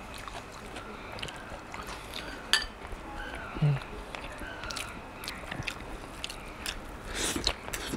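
A person chewing a mouthful of rice and curry eaten by hand, with small wet mouth clicks and smacks and a brief closed-mouth hum partway through.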